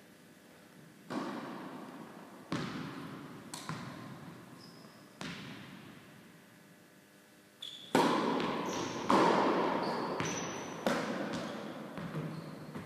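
Tennis rally: tennis balls struck by rackets and bouncing on the court, each a sharp pop with a long echo from the large hall, coming every second or two and louder from about eight seconds in. A few short high squeaks fall between the hits.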